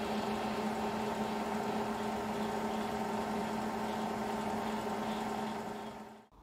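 Milling machine spindle running steadily under power, driving a tap in a floating tap holder into the workpiece; a steady hum that fades out near the end.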